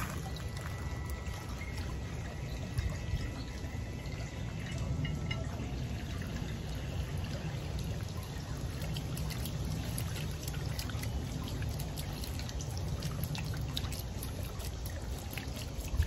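Water pouring steadily from a plastic jug into a glass bowl, splashing and trickling, while a small solar fountain's jet sprays into the bowl.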